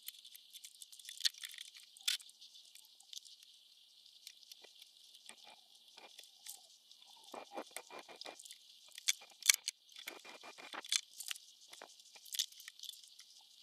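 Faint small clicks and crackles of soldering and handling work on a stereo receiver's circuit board, including two quick runs of rapid ticking in the middle, over a steady faint high hiss.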